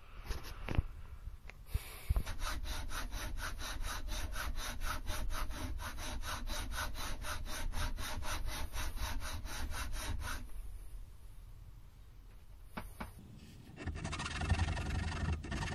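Hand file rasping across the steel edge of a lathe cross slide in quick, even strokes, several a second. The edge is being filed straight and chamfered after grinding. The filing pauses for a few seconds, then resumes briefly near the end.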